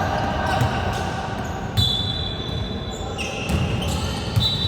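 Basketball bouncing on an indoor court, with several short high squeaks of players' sneakers on the floor, in a reverberant gym.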